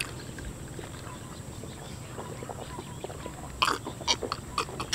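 Two people drinking from glasses, with quiet gulping and swallowing and a few sharper gulps and mouth clicks about three and a half seconds in.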